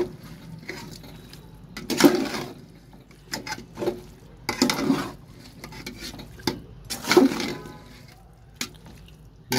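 Steel spatula stirring chicken pieces in wet masala in an aluminium pot: wet squelching and scraping strokes with knocks against the metal, coming in uneven bursts of a second or less.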